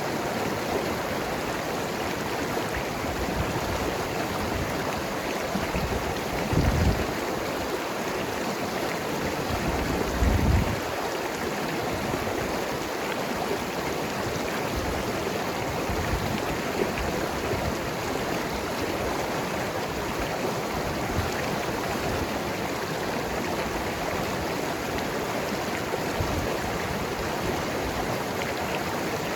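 Mountain river rushing and gurgling over rocks as a steady stream of water noise. About seven and ten seconds in, two brief deeper surges stand out.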